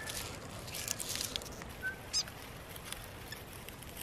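A few brief bird chirps: a short whistled note at the start, another a little before two seconds in, and a quick high chirp just after. Underneath is soft crackling and rustling of grass and leaves as prickly sow thistle (puha) is handled and cut with a knife.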